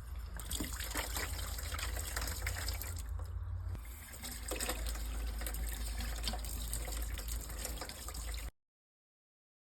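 Water running steadily from a newly repaired Woodford hot and cold hose bib over a low rumble, until the sound cuts off abruptly about eight and a half seconds in.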